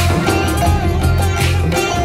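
Background music with sustained bass notes and a steady beat.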